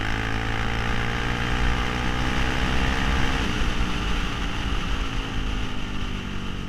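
Suzuki LTZ 400 quad's single-cylinder four-stroke engine pulling on the road, its revs slowly climbing. About three and a half seconds in the throttle eases off and the engine note drops to a lower rumble under wind rush.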